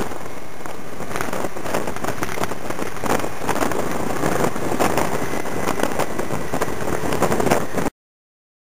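A motor scooter riding at road speed, its engine and road noise mixed with heavy wind rushing and buffeting over the microphone; the sound cuts off abruptly near the end.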